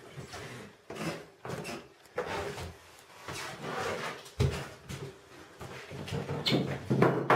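Wooden floorboards creaking repeatedly as they are stepped on, with the loudest creak near the end. The boards are loose and not fastened down at all.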